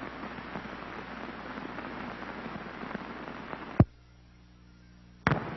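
Crackling hiss of an old film soundtrack with no programme sound on it. About four seconds in, a sharp pop cuts it to a faint low hum. About a second and a half later a second pop brings the hiss back.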